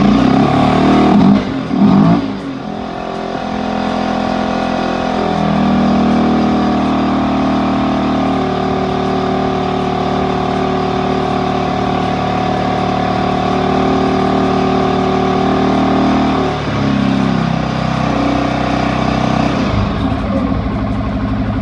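2015 CFMOTO CForce 500 ATV's single-cylinder engine being warmed up: revved in a couple of quick blips, then held at a raised, steady speed for about ten seconds before dropping back toward idle.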